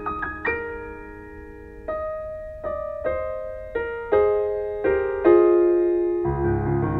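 Slow, gentle piano music, with single notes struck one after another and each ringing out as it fades. Deeper bass notes come in near the end.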